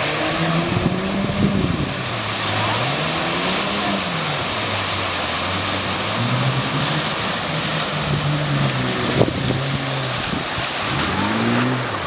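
Toyota Land Cruiser 4x4 engine revving up and down again and again while driving through a deep muddy water crossing, with water rushing and splashing around the vehicle.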